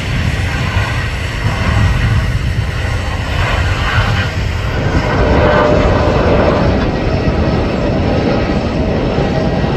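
Boeing 787-9's Rolls-Royce Trent 1000 turbofans at takeoff thrust: a loud, steady jet roar as the airliner rotates and climbs away. The roar grows a little fuller about five seconds in.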